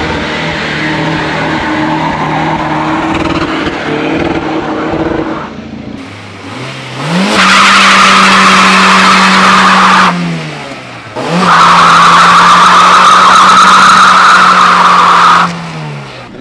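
Car doing a burnout: the engine climbs to high revs and is held there while the tyres spin and squeal on the road. This comes in two long bursts of about three and four seconds, with a short drop in revs between them. Before that, car engines idle and rev lightly.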